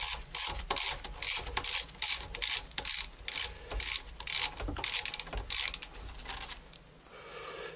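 Hand ratchet clicking in quick back-and-forth strokes, about three a second, as a valve-body bolt is unscrewed. The clicking stops about six and a half seconds in.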